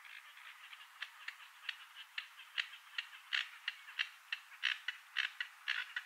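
A wetland bird giving a rapid series of short, clipped clicking calls, about two or three a second, growing louder through the second half.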